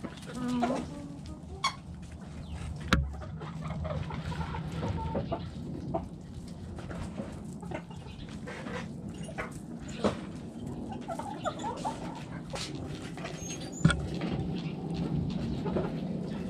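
Chickens clucking in short, scattered calls, broken by a few sharp knocks: the loudest come about three seconds in, ten seconds in, and near fourteen seconds.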